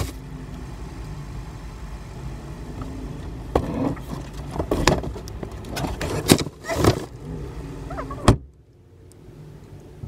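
A large cardboard box and bags being loaded into a car's back seat: several knocks and scrapes over a low steady hum. A car door shuts with a sharp thud about eight seconds in, and it goes much quieter after.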